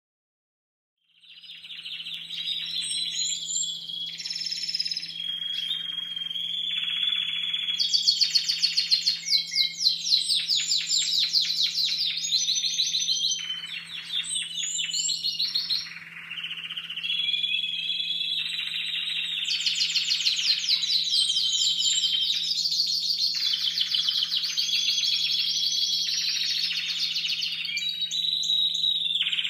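Young Timbrado Español song canaries singing together, starting about a second in: a continuous chorus of trills and long runs of rapid, evenly repeated notes. Their song is still in training, the repertoire not yet fully formed.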